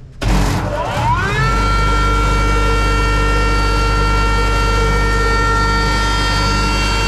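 Stainless-steel powder grinder's three-phase motor and grinding rotor switched on: a sudden start, then a whine that rises in pitch for about a second as it spins up to speed, settling into a steady high whine over a low hum.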